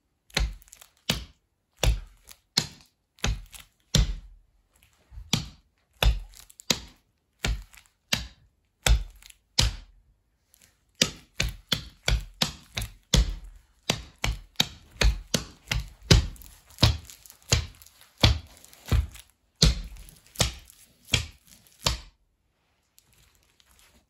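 Tap steps in trainers taped with clear tape at toe and heel, knocking on a board laid over carpet. An even run of toe-heel knocks for about ten seconds, then after a short pause a faster, denser run of taps that stops about two seconds before the end.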